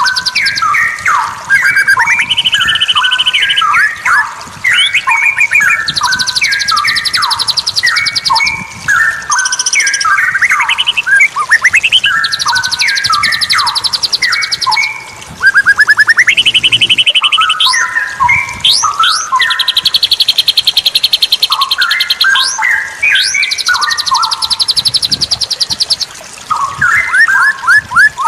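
Straw-headed bulbul (cucak rawa) singing loud, bubbling warbled phrases over and over with short gaps between them. High, fast trills of about two seconds each come in between the phrases.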